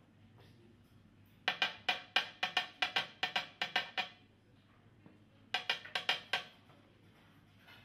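Two runs of quick knocks, about five a second: a metal shaping cup holding a bundle of loose brush hair is rapped against the workbench so that the hairs settle into the rough shape of the brush head. A dozen or so knocks start about a second and a half in, and about five more follow a second later.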